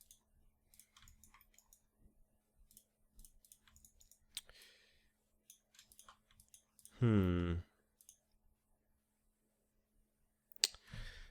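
Sparse, faint computer mouse and keyboard clicks, with a short hummed "hmm" falling in pitch about seven seconds in.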